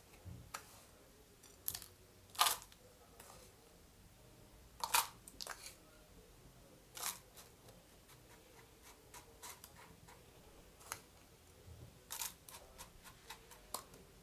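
Scattered light clicks and taps, about a dozen at irregular intervals, of a metal spoon knocking against thin disposable plastic shot glasses as crushed digestive biscuit crumbs are spooned in.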